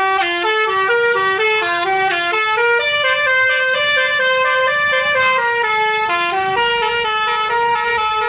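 Tour bus's multi-tone 'telolet' musical horn playing a tune: a quick run of short notes stepping up and down, with a few longer held notes in the middle, loud throughout.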